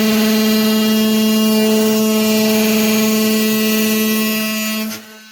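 Electric power tool running with a steady buzzing tone while cutting, shutting off abruptly about five seconds in.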